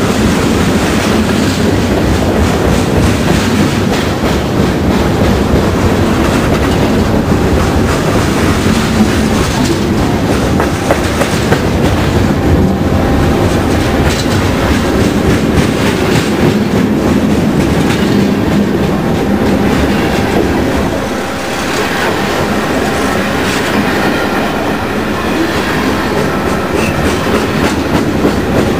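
Mixed freight cars (lumber centerbeam flats, a boxcar, gondolas) passing close by at speed. Their steel wheels make a loud, steady rolling rumble with rapid clickety-clack over the rail, dipping slightly about three quarters of the way through.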